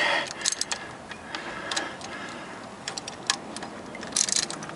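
Socket ratchet clicking in short, irregular runs, with scattered metal clinks and a brief scrape near the end, as the bolt on the timing cover's balancer is worked back out.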